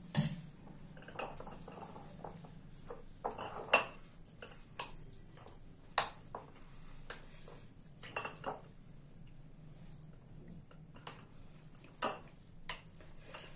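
Metal spoon stirring curd into soaked flattened rice (chura) in a bowl, knocking and scraping against the bowl in irregular clinks.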